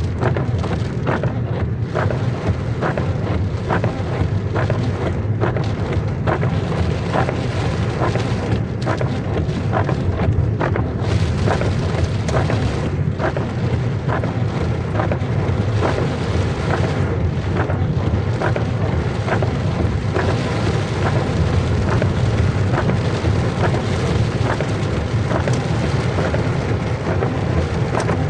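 Heavy rain falling steadily, with many sharp drop impacts close by over a constant low rumble.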